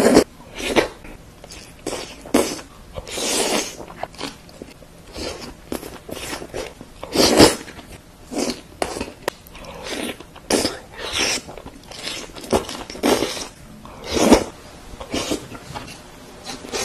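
Close-miked eating sounds: slurping and chewing spicy tteokbokki rice cakes in sauce. A steady run of short mouth noises, with three louder, longer slurps or breaths near the start, about halfway and near the end.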